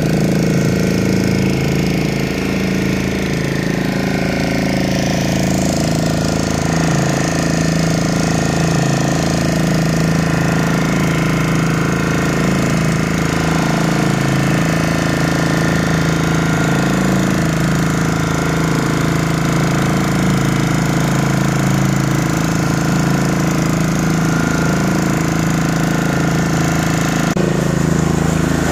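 Fishing boat's engine running steadily with a constant knocking drone.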